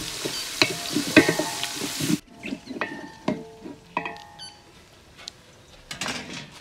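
Sliced onions sizzling in hot oil in a large metal cooking pot, with the spoon knocking and scraping against the pot as they are stirred. The sizzle cuts off about two seconds in, leaving quieter scattered knocks and scrapes of stirring.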